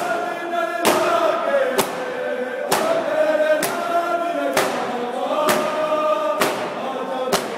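A crowd of men chanting a noha (mourning lament) together, with the massed slap of hands beating chests (matam) in time, roughly one beat a second.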